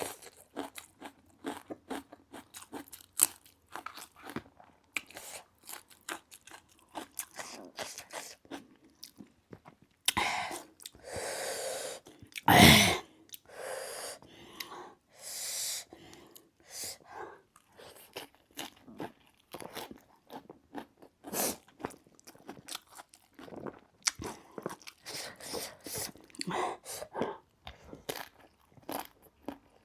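A person crunching and chewing food close to the microphone, a quick run of short crunches, with a few longer, louder sounds about a third of the way through.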